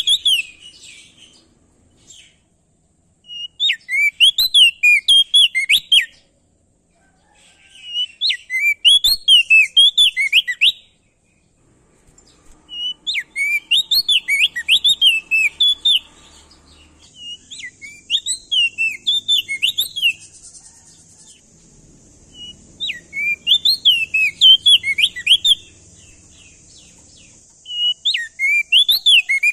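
Crested heleia (opior jambul) singing: loud phrases of rapid, rising-and-falling whistled notes, each about two seconds long, repeated every four seconds or so.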